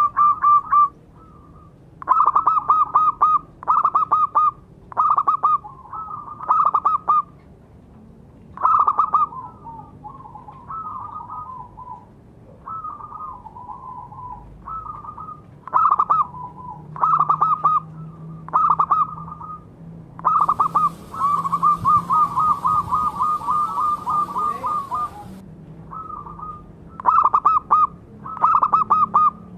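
Zebra dove (perkutut) cooing in a string of short phrases of rapid staccato notes, each phrase about a second long. Some phrases near the middle are softer, and about two-thirds through one run of notes goes on for about four seconds.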